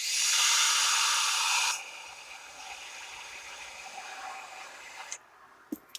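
A long draw on a dripped Blitz Ghoul RDA with a 0.339-ohm coil firing at 46.5 watts: a loud hiss of air and sizzling juice for about two seconds, then a softer hiss for about three seconds more. A short tick comes near the end.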